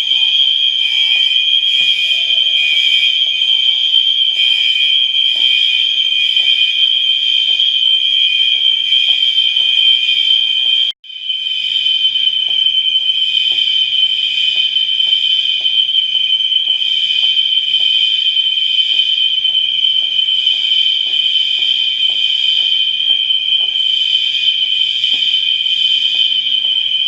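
Several electronic fire alarm horn/strobes sounding together in one continuous, loud, high-pitched tone. Faint strokes of a mechanical fire alarm chime sound beneath them. The sound cuts out for an instant about eleven seconds in, then resumes.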